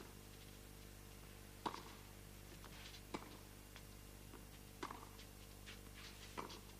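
Tennis racket strikes on the ball in a baseline rally, about five faint knocks roughly a second and a half apart, over a steady low hum.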